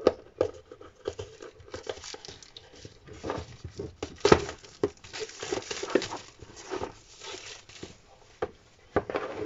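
Plastic shrink wrap being torn and crinkled off a cardboard box, with scattered clicks and taps as the box is handled, and a sharper knock about four seconds in.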